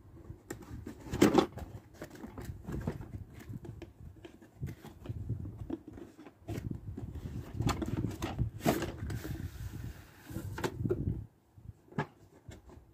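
Cardboard toy packaging handled and slid apart by hand: rubbing and scraping of cardboard with scattered taps and knocks. The sharpest knocks come about a second in and near nine seconds, followed by a brief scrape.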